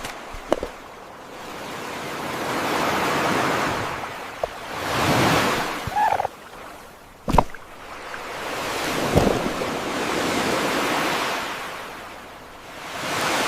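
Ocean surf sound effect: waves washing in and drawing back, swelling and fading every few seconds. A single sharp knock comes about seven seconds in.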